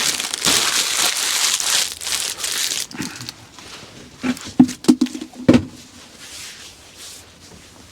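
Dishes being cleaned up by hand: about three seconds of rustling and wiping, then a quick run of knocks and clinks as dishes and utensils are set down and stacked.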